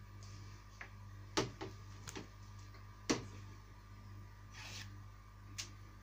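Plastic clicks and knocks from handling an Electrolux tumble dryer's door and plastic parts, with two louder knocks about a second and a half apart and a few lighter ticks, over a steady low hum.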